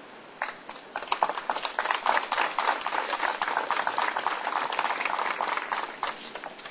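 A small crowd applauding. The clapping starts about half a second in and dies away about six seconds in.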